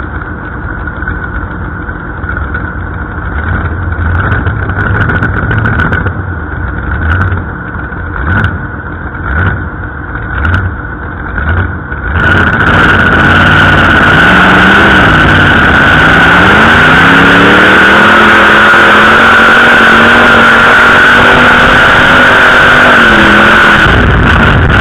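Pulling tractor's engine idling with several short throttle blips. About twelve seconds in it goes to full throttle for the pull and runs loud, its pitch wavering up and down under load.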